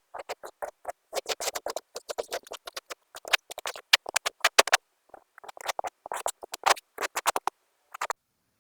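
Kinetic sand being cut and crumbling: fast, crisp crackling crunches in quick clusters with brief pauses, stopping about eight seconds in.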